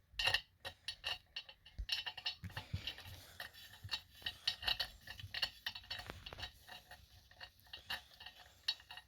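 Valve-core removal tool turning in a tire's valve stem to take out the valve core: a run of light metallic clicks and ticks.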